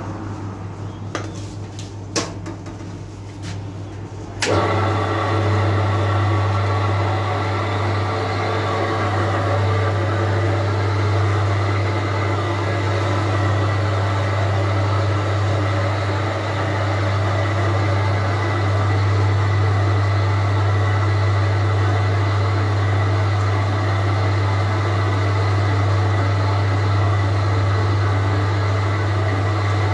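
Electric dough-kneading machine switching on about four seconds in and running steadily with a deep hum as its arm kneads bread dough in the bowl. A few light knocks come before it starts.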